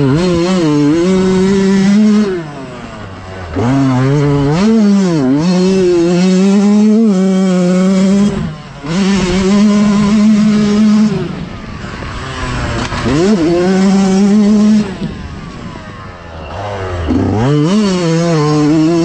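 Yamaha YZ125X single-cylinder two-stroke dirt bike engine revving hard under load. The throttle is cut several times, each time with the pitch falling sharply and then climbing back up as it pulls out of the corner.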